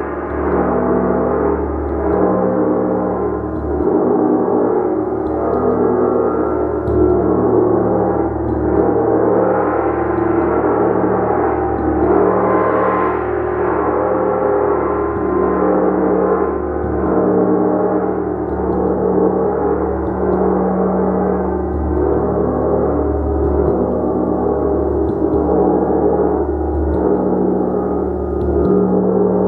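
Gong played continuously with a mallet: a dense, sustained wash of many overlapping ringing tones that swells and eases in waves about every two seconds.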